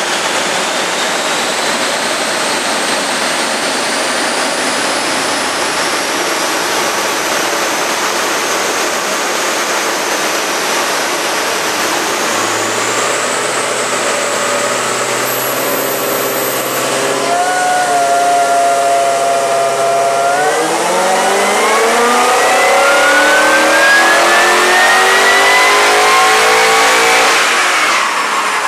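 Supercharged 5.0-litre V8 of an FPV GT running on a chassis dyno. After a stretch of steady noise with a thin whine slowly rising, the engine note holds a few steady speeds. About 20 seconds in it climbs in pitch through a wide-open power run, the loudest part, and eases off near the end.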